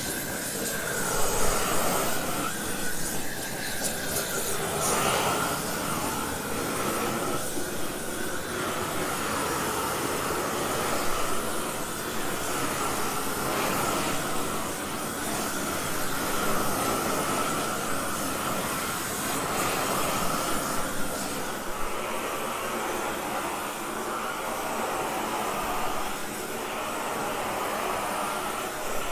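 GrillBlazer GrillGun propane torch burning with a steady, jet-like rushing hiss as its flame is played over the surface soil of a raised garden bed.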